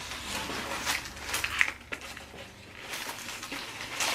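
Chewing a sub sandwich close to the microphone: irregular chewing and crunching sounds.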